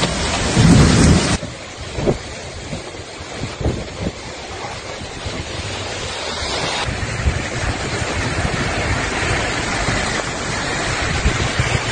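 Rushing floodwater with wind buffeting the microphone: a steady noisy rush, loud at first, dropping off suddenly about a second and a half in, then slowly building again with a few soft knocks.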